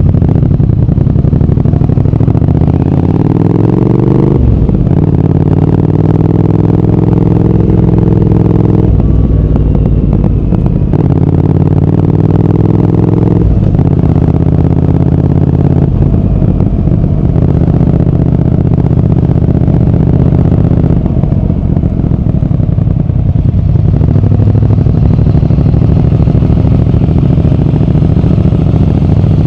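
Triumph Speed Twin 1200's 1200 cc parallel-twin engine and exhaust accelerating under way. The pitch climbs and drops back at each upshift, several times in the first half, then holds a steadier cruise.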